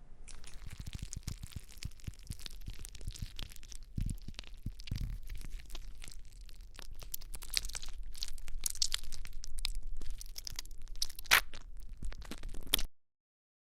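Slime being worked and squished, giving a dense run of crackling clicks and pops. It grows louder in the second half, with a few sharp snaps near the end, then cuts off suddenly.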